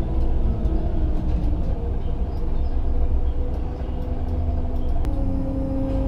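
Liebherr LHM550 mobile harbour crane's machinery running, heard inside the operator's cab: a steady low drone with a whining tone that steps to a new pitch about five seconds in as the crane is worked.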